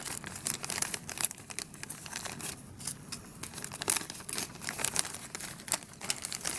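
Plastic packaging crinkling and rustling in irregular crackles as the small parts of an electronics kit are handled.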